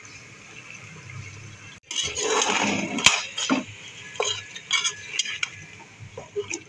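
Perforated metal spoon stirring chunks of beef in a metal pot, with a loud scrape about two seconds in and a string of sharp clinks of spoon against pot after it, as whole spices are stirred into the meat.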